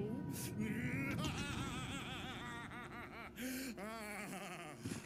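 A man laughing: a quick run of repeated "ha"s from about a second in, with more laughter a little later.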